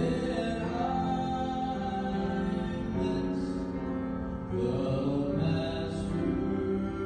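A man singing a Southern gospel song into a microphone with piano accompaniment, holding long notes between phrases.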